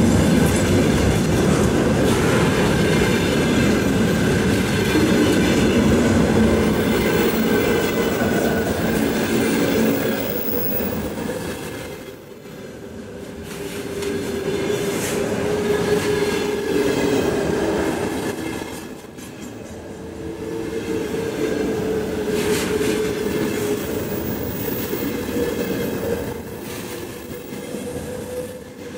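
Container freight train's loaded flat wagons rolling past close by: a steady rumble of steel wheels on rail with clatter over the rail joints. A faint steady wheel whine comes and goes, and the sound dips twice briefly.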